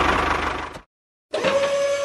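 A small motor running with a dense, rapid buzzing rattle that fades out just under a second in. After a brief dead gap, a steady high whine of a small electric motor starts and holds an even pitch.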